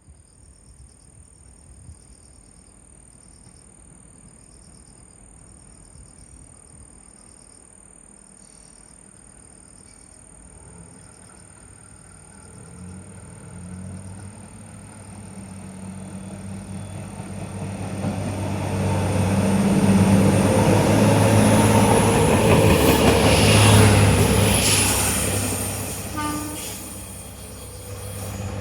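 JR Kyushu YC1 series diesel-electric hybrid railcar approaching and passing, its engine and wheel noise building through the second half, loudest a few seconds before the end, then falling away. Before it arrives, insects chirp in a steady, evenly repeating pattern.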